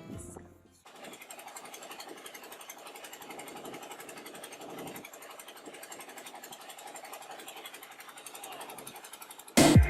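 Small boat engine running steadily with a rapid, even clatter. Background music fades out at the start and comes back loudly near the end.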